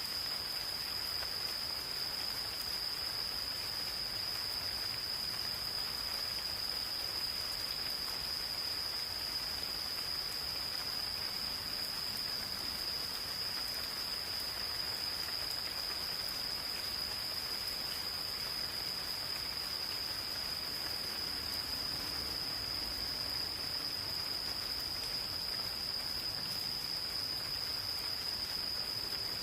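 Singing insects holding one steady, unbroken high-pitched trill over the soft, even patter of gentle rain in a forest.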